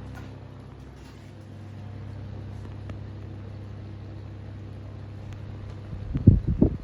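Soviet 'Sputnik' electric desk fan running, its motor giving a steady low mains hum. A few loud low thumps come near the end.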